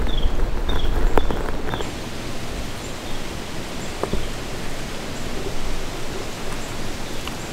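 Outdoor woodland ambience: a steady rushing hiss with rustling, with a low rumble and a few short, high, falling chirps and light clicks in the first two seconds, after which it settles to a quieter steady hiss.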